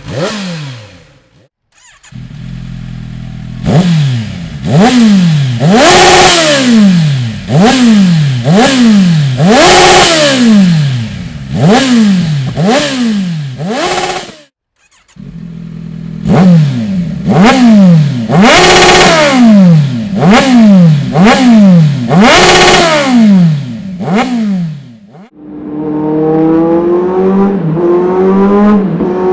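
Kawasaki Z900 inline-four engine revved repeatedly through an aftermarket Dominator exhaust, quick blips each rising and falling about once a second, in two runs broken by a brief cut. Near the end it pulls steadily with a pitch that climbs slowly.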